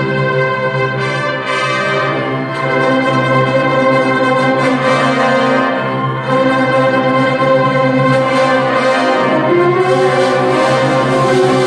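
Symphonic concert band of brass and woodwinds playing together in sustained, shifting chords.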